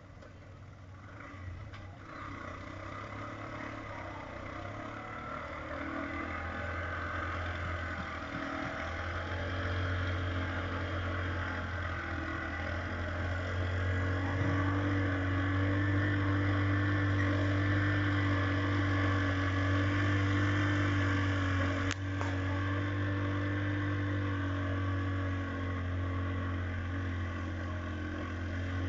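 A motor vehicle engine running steadily, growing louder over the first fifteen seconds and then holding level. There is one sharp click about 22 seconds in.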